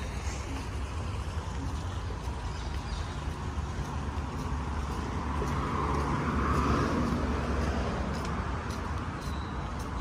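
Road traffic on the street alongside: a steady rumble of passing cars, with one vehicle going by louder about six seconds in.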